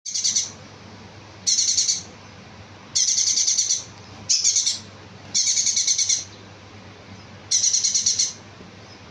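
Konin bird song used as a lure to prompt a caged konin to sing: short, rapid, high-pitched trilled phrases, six of them, repeating roughly every second and a half, over a faint low hum.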